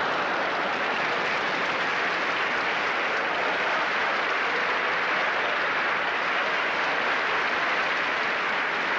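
Large audience applauding steadily after a comedy punchline.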